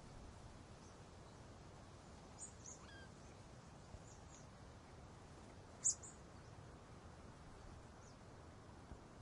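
Birds chirping: a few short, high chirps over faint outdoor background noise, the loudest about six seconds in, with a faint falling call about three seconds in.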